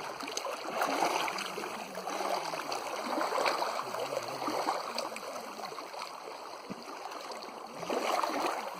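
Water splashing and lapping in an uneven wash that swells louder about a second in, again around the middle, and near the end.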